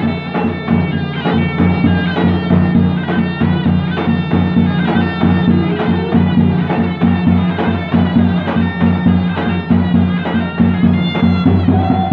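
Davul and zurna playing halay dance music: a large double-headed bass drum beating a steady dance rhythm under a shrill, ornamented reed-pipe melody, with a steady low drone underneath.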